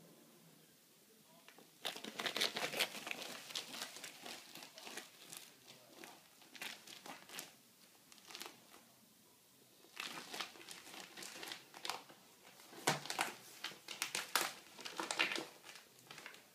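Prairie dog scrabbling through a clear, ribbed plastic hose: claws scratching and crinkling on the plastic in irregular bursts of sharp clicks, starting about two seconds in, with a short lull midway.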